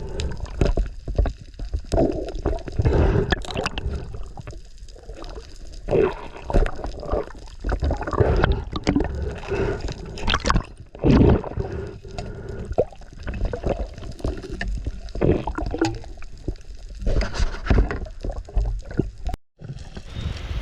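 Water sloshing and gurgling around the camera in uneven surges, muffled and low, as during a dive. The sound cuts out briefly near the end.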